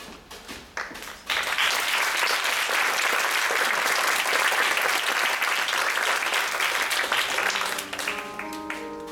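Theatre audience applauding, starting suddenly about a second in and dying away near the end. Near the end a few held notes of music begin.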